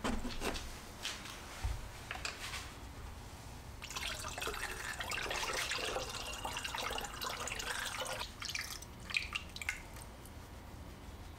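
Liquid poured from a bottle through a plastic funnel into a plastic gallon jug. It splashes steadily for about four seconds starting about four seconds in, then stops abruptly. Light clicks and knocks of containers being handled come before and after.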